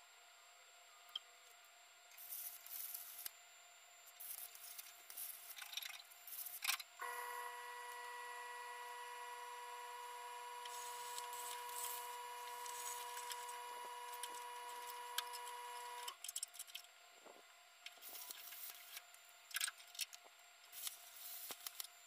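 MIG welder laying short, irregular crackling bursts of weld on the VW body's sheet metal. A steady whine with overtones runs for about nine seconds in the middle.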